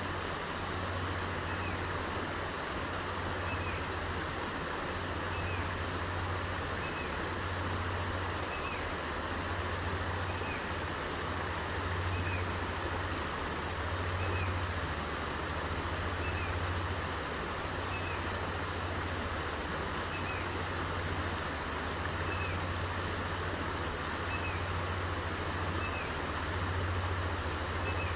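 Headwater stream water running steadily over rocks, with a steady low rumble underneath. A faint, short, rising call repeats about once a second throughout.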